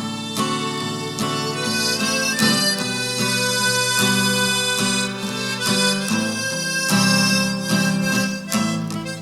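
Harmonica playing a slow tune in held notes that change every second or so, with chords sounding underneath the melody.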